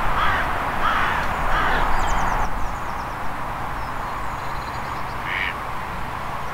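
A crow cawing three times in quick succession, then once more near the end, with small birds chirping faintly. Underneath is a steady outdoor hiss that drops off about two and a half seconds in.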